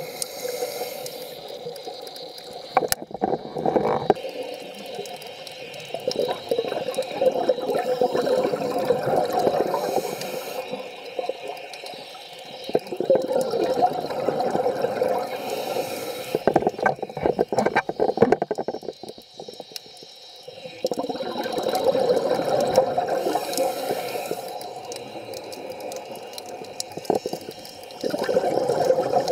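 Scuba diver's exhaled bubbles gurgling out of the regulator underwater. They come in surges a few seconds long, with quieter gaps between for each breath in, and a few sharp clicks.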